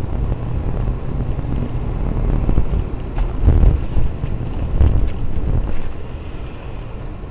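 Low rumbling wind and road noise buffeting a dashcam microphone, with a few short thumps near the middle.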